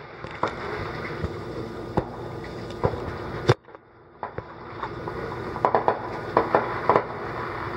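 Distant fireworks: single bangs about a second apart, then a quick run of pops and crackles near the end, over steady background noise.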